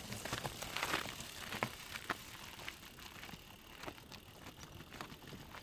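Camping gear being handled and packed: scattered light clicks and knocks with crinkling, rustling noise.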